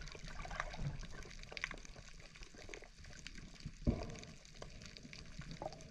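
Faint underwater ambience: scattered small clicks and crackles in the water, with one low thump about four seconds in.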